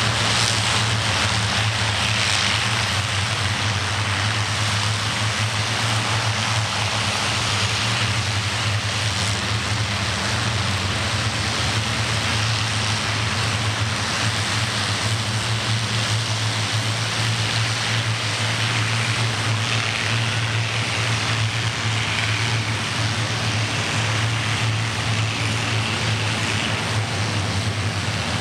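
Several P-51 Mustangs' Packard Merlin V-12 engines running at low power as the fighters taxi, a steady low drone with propeller noise.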